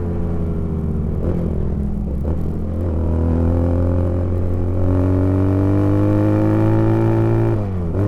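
Honda GL Pro motorcycle with a custom 320 cc inline two-cylinder engine running. The engine note holds steady, then climbs gradually for several seconds before dropping sharply near the end.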